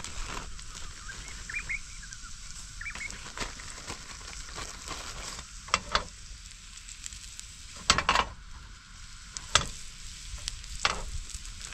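Crumbed coral trout pieces shallow-frying in hot oil in a pan: a steady sizzle, with a few sharp clicks scattered through it.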